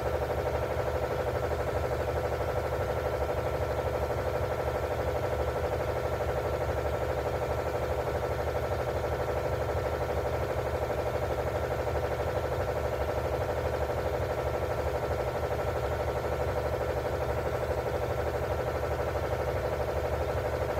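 A steady machine hum with several fixed tones, holding constant and unchanging.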